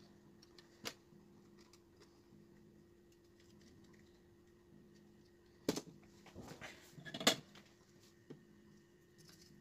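Scattered clicks and knocks of a TV power-supply circuit board being handled and moved against the TV's metal back panel, with two sharper knocks and a brief rattle about six to seven seconds in, over a faint steady hum.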